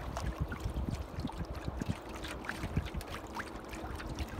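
Water gurgling and splashing along the hull of a small boat under way, in many short bubbly blips over a low rumble.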